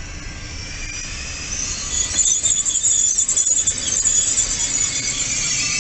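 TER regional train rolling slowly along the platform, low rumble at first, then its wheels squealing in several high, steady tones from about two seconds in.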